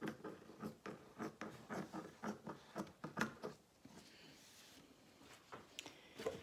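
Baking paper rustling and scratching as cut puff pastry triangles are moved about on a counter: a quick run of short scratchy rustles, then a softer sliding hiss about halfway, and a few light clicks near the end.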